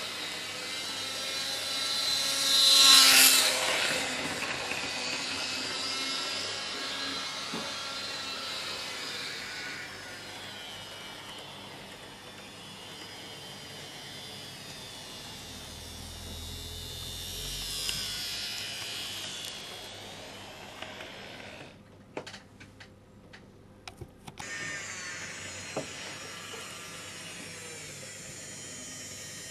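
N gauge model train running on the layout: the electric motor whirs and the wheels rattle on the rails, swelling loudest a few seconds in. About three quarters of the way through, the sound cuts out for about two seconds with a few clicks, then resumes.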